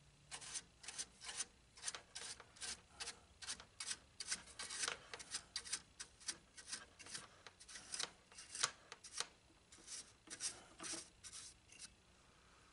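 Quick scrubbing strokes on the dusty metal chassis of a Grundig tube radio, about three a second, cleaning off caked dust; the strokes stop about a second before the end.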